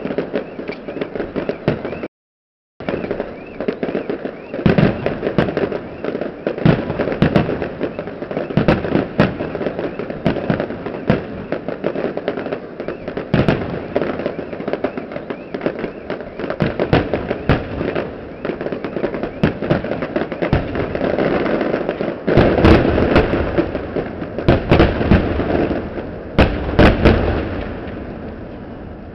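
Fireworks display: a dense, continuous run of bangs and crackling shell bursts, with a cluster of louder booms about three quarters of the way through, then dying down near the end.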